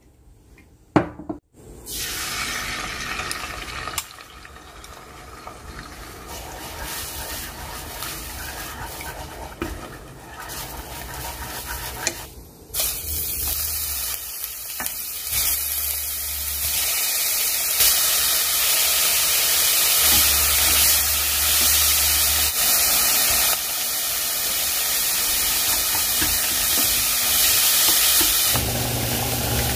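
Food sizzling in a hot frying pan as it is stir-fried, after a sharp knock about a second in. The sizzle grows louder and brighter about twelve seconds in.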